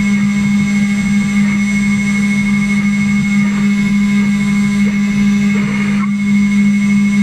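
CNC router spindle running at a steady pitch: a constant hum with a fainter high whine above it.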